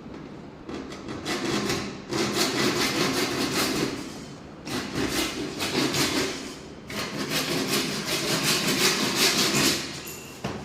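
Wood being worked by hand with rhythmic back-and-forth scraping strokes, in four runs of a few seconds each with short pauses between.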